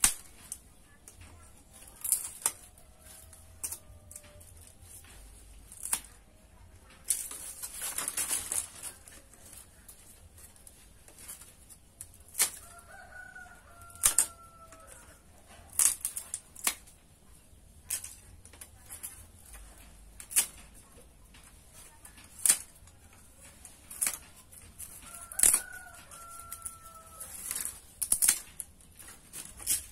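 Ends of bamboo strips being cut off by hand: sharp snaps about every two seconds, with a longer rustle of bamboo about seven seconds in. A rooster crows faintly twice in the background.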